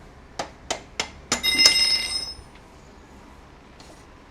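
Loose rear axle nut and washer clinking as they are handled and set down: four quick metallic clicks, then a bright ringing clink that dies away within a second.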